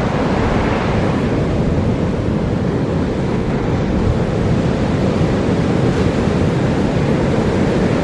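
Ocean surf breaking and washing up a sandy beach: a steady rushing noise, heaviest in the low end.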